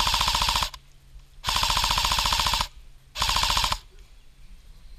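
Airsoft electric rifle firing on full auto in three bursts: one that cuts off just under a second in, a longer one of about a second, and a short one about three seconds in. Each burst is a rapid, even rattle of shots.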